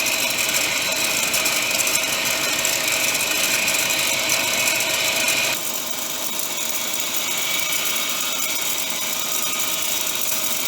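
Subaru EJ20 engine running steadily in the engine bay, with a rattling clatter from the belt drive: the sign of a worn idler pulley. The sound changes abruptly about halfway through.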